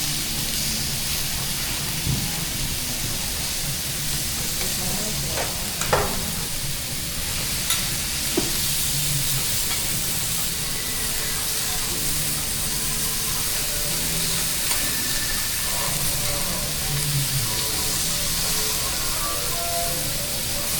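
Food sizzling steadily on a hot teppanyaki griddle, with a few sharp clicks about six to eight seconds in.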